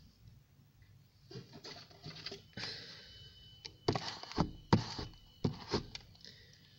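Rustling, then several sharp knocks in quick succession between about four and six seconds in.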